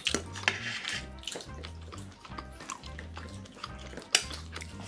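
Eating sounds: chopsticks clicking against stainless-steel bowls and dishes, with one sharper click about four seconds in, over background music with a steady bass line.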